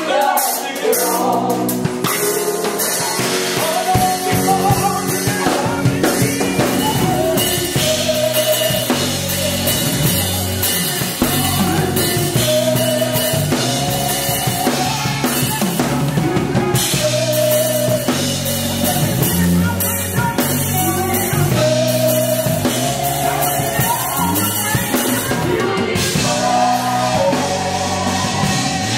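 Live gospel band playing with drum kit, bass guitar and keyboard, a lead singer and other voices singing over it.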